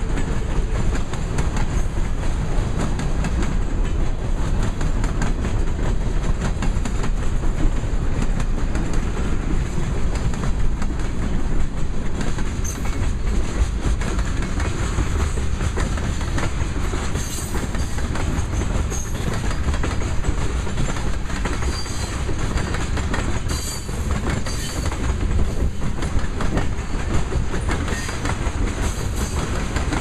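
Freight train cars, covered hoppers and tank cars, rolling past close by: a steady heavy rumble with wheels clicking rapidly over rail joints, and a few brief high wheel squeals in the second half.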